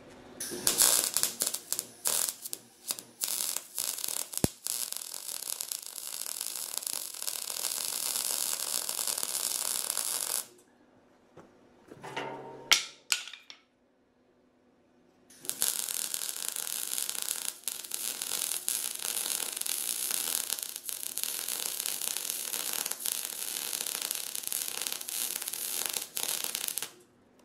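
Wire-feed welder arc welding the steel end of a lawn roller: a steady crackling sizzle with irregular pops, in two runs of about ten seconds, stopping briefly for a couple of seconds in between with a short clatter.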